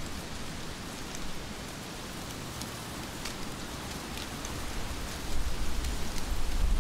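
Rain falling steadily, with single drops ticking sharply now and then. About five seconds in, a low rumble comes up and the whole grows louder.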